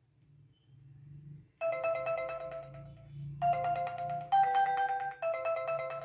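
Smartphone ringtone: a melody of short pitched notes starts about one and a half seconds in, with a brief break near the middle. The phone is ringing with an incoming call placed by the fire alarm's SIM800L GSM module as its fire alert.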